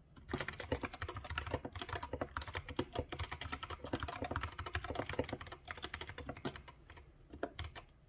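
Fast typing on an Anne Pro 2 60% mechanical keyboard with stock, unlubed Durock T1 "Smokey" tactile switches and SA-profile keycaps: a dense run of keystrokes. It thins out after about six seconds, with a last few strokes near the end.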